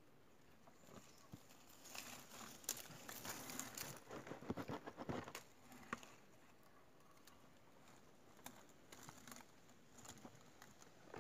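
Faint rustling and crinkling of a plastic bottle bait trap packed with leaves being handled and turned. There are a few seconds of louder crackling about two seconds in, then scattered light clicks.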